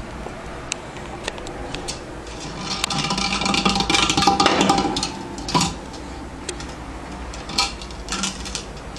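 A hard plastic treat-dispensing pyramid toy being knocked about by a pet, giving scattered clicks and clatters. A louder, busier rattle runs from about three to five seconds in.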